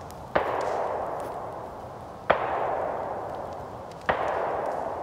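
Three distant gunshots about two seconds apart, each followed by a long rolling echo that fades slowly.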